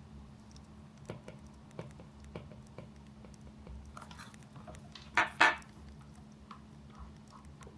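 Crackling campfire sound with scattered small pops and ticks, and two louder short clatters close together about five seconds in, over a faint steady hum.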